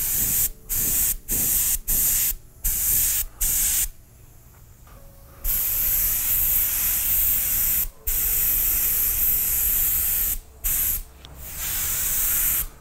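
Airbrush spraying acrylic paint, a hiss of compressed air that starts and stops as the trigger is worked. It comes in a run of short bursts, then a pause of about a second and a half around four seconds in, then longer sprays.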